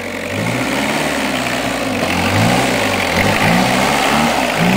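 Car engine revving up and down repeatedly as the car struggles for grip on wet, muddy ground, with the revs rising and falling several times.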